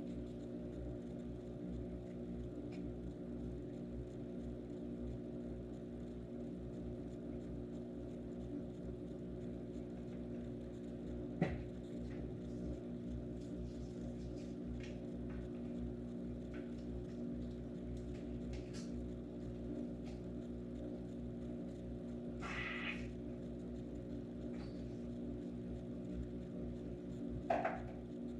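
A steady low hum of many fixed pitches throughout, with a few faint clicks and handling knocks, a sharper click about 11 seconds in and a brief hiss about two-thirds of the way through.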